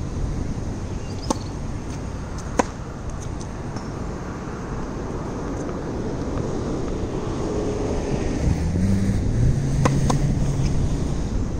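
Tennis racquets striking balls during serving practice: a few sharp pops, the loudest about two and a half seconds in and two close together near ten seconds. Under them are steady wind noise and road traffic, with a vehicle engine passing in the second half.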